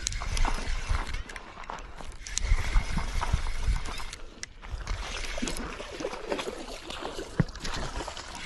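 Spinning reel cranked steadily while fighting a hooked striped bass, with a run of small clicks and clatter from the reel and the rod being handled, over a low rumble of wind and handling noise on the body-worn microphone.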